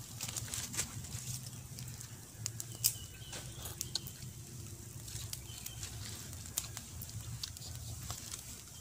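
Open fire of dry palm fronds and sticks crackling, with irregular sharp pops and one louder snap about three seconds in, over a steady low hum.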